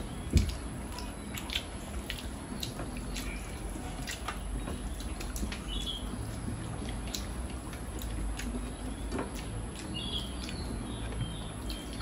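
Eating by hand: fingers mixing rice and curry on plates and chewing, heard as scattered small clicks and smacks, with a louder knock about half a second in.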